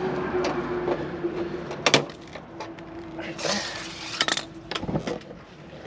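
Sharp plastic clicks and light clatter from a tape measure and a white plastic grid panel being handled, with one loud snap about two seconds in and a short rattle a little over a second later. A faint steady hum runs underneath.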